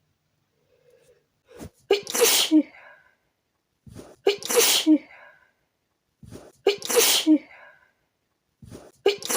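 A woman in a sneezing fit: three loud sneezes about two and a half seconds apart, each after a short sharp inhale, with a fourth starting at the very end.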